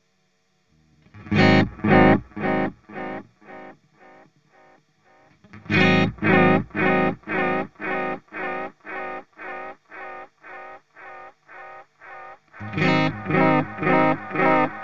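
Electric guitar through an Earthquaker Devices Space Spiral modulated delay pedal, with the Repeat (regeneration) knob turned up high. Three notes are struck, about a second and a half in, about six seconds in and near the end. Each one trails a long run of evenly spaced echoes, about two a second, that fade away slowly.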